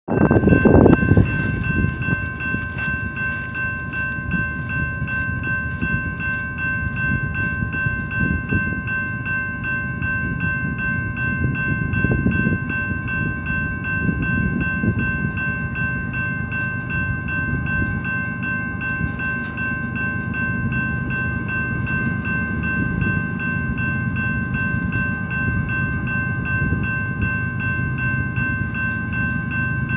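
Railroad grade-crossing bell ringing steadily in an even, repeating rhythm while the crossing is active, over a low rumble that is loudest in the first second or so.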